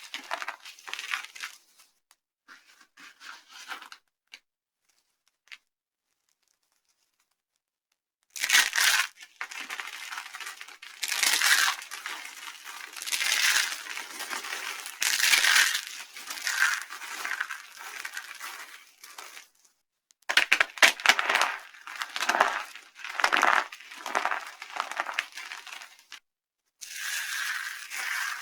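Dry soap being crushed, crunching and crumbling in long bursts after a few seconds of silence near the start.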